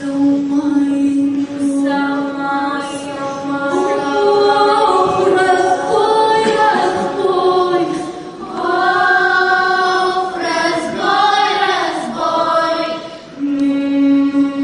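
Children's choir singing a slow song in long held notes, the phrases broken by short pauses about halfway through and near the end.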